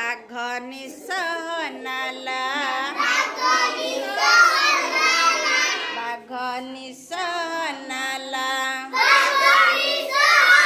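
Children singing an Odia action song about the seven colours of the rainbow, in short phrases with brief breaks between them.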